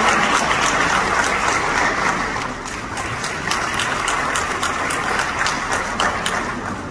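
Audience applauding, dense at first, then thinning to separate claps over the last few seconds and dying away near the end.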